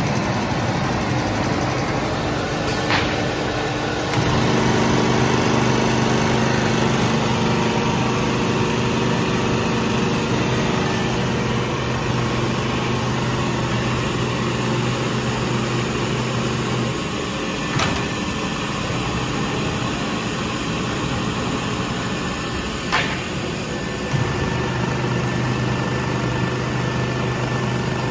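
Automatic tape-binding machine line running with a steady mechanical noise. A motor hum sets in about four seconds in, cuts out around the middle and starts again near the end, with a few sharp clicks.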